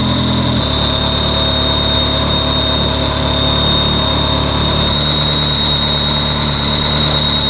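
Ferrari 360's V8 idling with a steady, high-pitched whistle from a vacuum leak, which the mechanics suspect is a leaking injector O-ring or intake runner gasket. The engine note shifts about half a second in and again around five seconds in.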